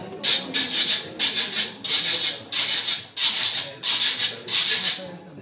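A metal güiro scraped with a stick in a steady rhythm: about nine scraping strokes, close to two a second.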